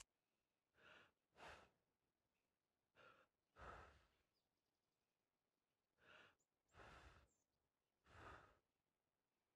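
Faint, soft breathy puffs of a cartoon character blowing through a soap-bubble wand: about seven short breaths, mostly in pairs a half second apart, with pauses of a couple of seconds between them.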